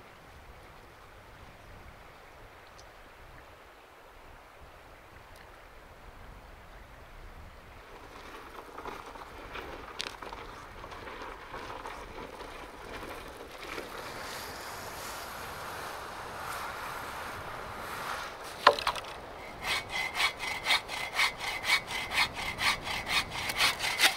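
An Agawa Canyon Boreal 21 folding saw with a dry-wood blade cutting through a dry pole, in quick even back-and-forth strokes about two a second. The sawing starts near the end, after a long stretch of faint ambience.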